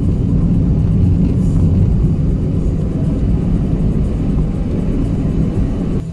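Vehicle driving on a road, heard from on board: a steady low rumble of engine and road noise. It changes abruptly near the end.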